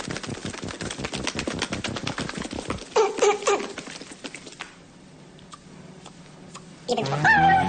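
Rapid even clicking, about ten clicks a second, for close to three seconds. A short warbling tone follows, then faint scattered clicks. Music starts near the end.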